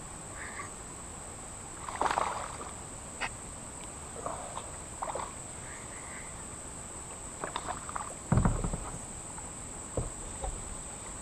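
Scattered splashes and sloshes of creek water, the loudest about eight seconds in, over a steady high-pitched drone of insects.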